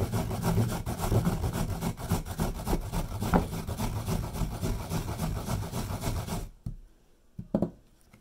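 A peeled carrot rubbed quickly up and down a fine metal hand grater, a steady run of rasping strokes that stops suddenly about six and a half seconds in. Two short knocks follow.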